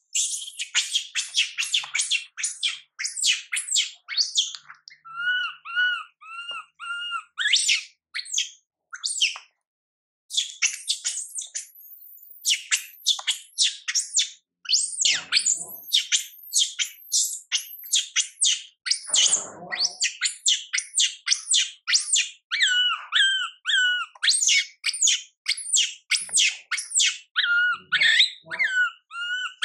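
Baby long-tailed macaque crying: a rapid string of shrill screeches, several a second, mixed with stretches of lower, arched squeals, broken now and then by brief pauses.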